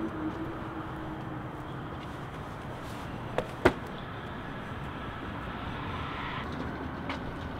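Steady hum of city road traffic. Two sharp knocks come close together about three and a half seconds in.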